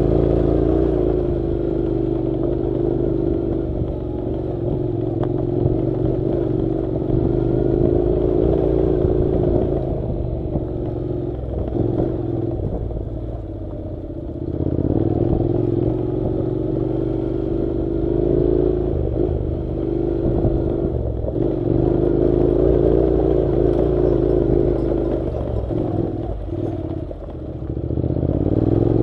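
Honda NC700's 670 cc parallel-twin engine running steadily as the motorcycle rides along a dirt track, easing off twice and picking up again.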